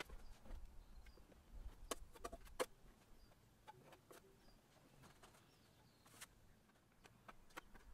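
Faint, scattered clicks and scrapes of a metal putty knife against a handheld mud pan as Bondo filler is worked, with a few faint bird chirps.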